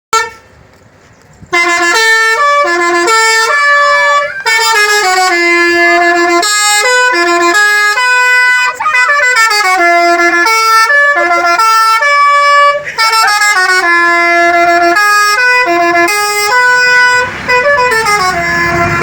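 Bus 'telolet' horn, a Basuri multi-tone air horn, playing a quick melody of stepped notes. It starts after a brief blip about a second and a half in and runs on without a break.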